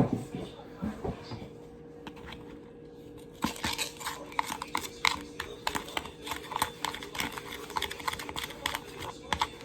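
Homemade slime being squeezed and kneaded by hand, a dense run of small clicks and pops starting about three seconds in. A single knock comes at the very start, and a faint steady hum runs underneath.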